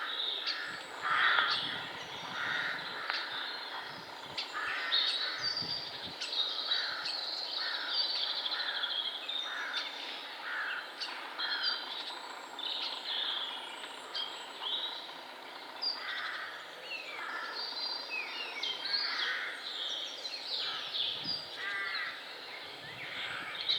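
Woodland bird chorus: a crow-type bird cawing over and over, about once a second through the first half and more sparsely after, with smaller songbirds chirping and singing throughout.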